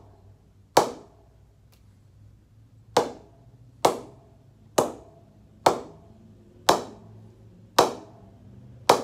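A new leather cricket ball bounced repeatedly off the face of an SS Players English willow bat: eight sharp knocks with a short ring, roughly a second apart, with a longer gap after the first. The bat is being tested for how well it rebounds.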